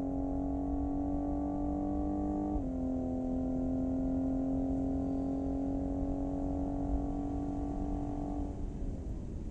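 The 2020 Cadillac CT5-V's twin-turbo V6 pulling hard at high revs, creeping up in pitch, with an upshift dropping the note about two and a half seconds in. Near the end the engine note fades and falls as the car comes off the throttle.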